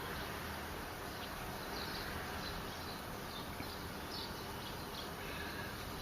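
Faint, short high-pitched animal chirps repeating every half second to a second over a steady background hiss.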